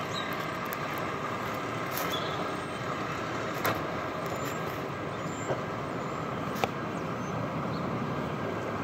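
International garbage truck with a Heil packer body running steadily, with a few short sharp clicks.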